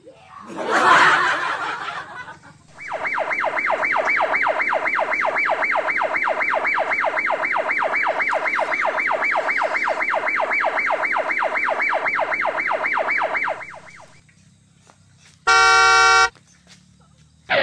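An electronic siren warbling fast, about four rises and falls a second, for about ten seconds, after a short whoosh-like burst. A short steady horn-like beep sounds near the end.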